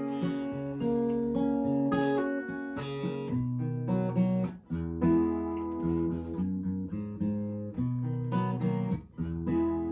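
Acoustic guitar strummed and picked through a chord progression between sung lines, with brief breaks about halfway through and near the end.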